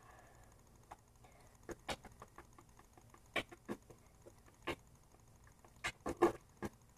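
A boy beatboxing softly: scattered mouth clicks, pops and puffs at an uneven pace, with a few louder pops near the end.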